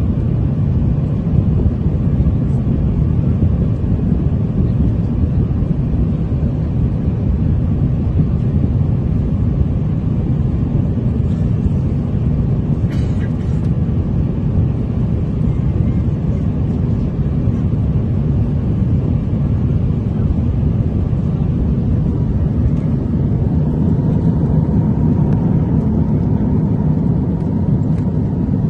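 Steady low cabin noise of an Airbus A350-900 in cruise flight, with a brief faint click about halfway through.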